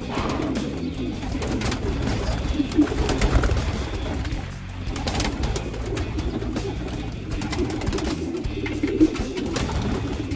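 Racing pigeons cooing in a loft, a steady overlapping murmur of coos, with background music under it.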